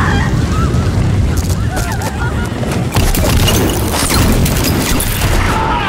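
Large fire from burning aircraft wreckage: a low, steady roar full of crackles and sharp bangs, with a louder crash about three seconds in. People shout and scream over it.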